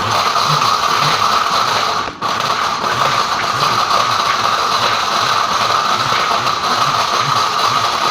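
Kitchen blender running at full speed with hard pieces of computer scrap rattling and crackling inside the jar, stopping for a moment about two seconds in and then running on.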